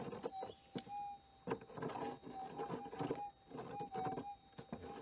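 Gold detector's steady threshold hum, swelling louder several times as it picks up a target still in the hole. Between the swells come sharp clicks and short scraping patches from digging into hard, rocky ground.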